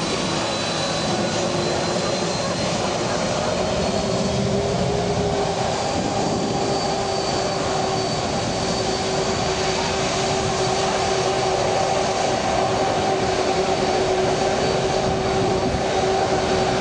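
Four jet engines of a Boeing 747-400 running at high power for takeoff: a steady roar carrying two whining tones. The tones rise slightly about five seconds in, and the roar grows a little louder near the end.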